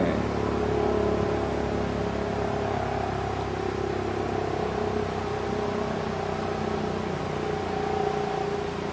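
A motor running steadily: a low hum with a steady whine over it, swelling slightly near the end.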